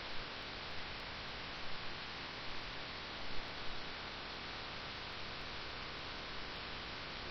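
Steady hiss and hum of the broadcast audio line during a pause in speech, with a few faint soft noises.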